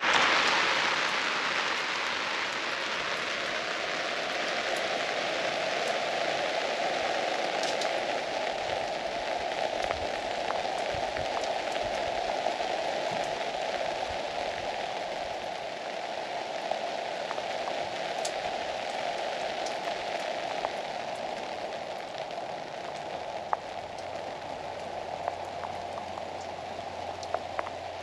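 Steady rain falling, with scattered sharper drip ticks, easing slightly as it goes on.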